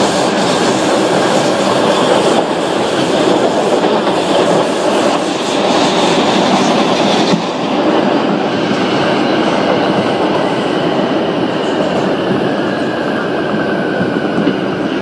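New York City subway 4 express train running at speed, heard from inside the car: a steady rumble with the clatter of wheels over the rail joints. The hiss eases about halfway through, and a faint high whine comes in near the end.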